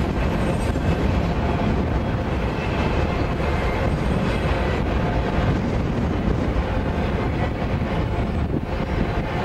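BNSF freight train passing: autorack cars and trailer-carrying flatcars rolling by, a steady noise of steel wheels on the rails.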